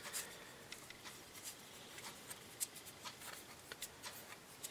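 Small brush scrubbing softened glue residue off a plastic tablet frame: faint, irregular scratchy strokes and light ticks.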